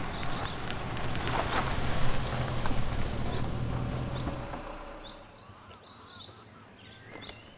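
Car engine running as the vehicle rolls slowly on a dirt road, with gravel crackling under the tyres, fading out about four and a half seconds in. Small birds chirp over it and carry on afterwards.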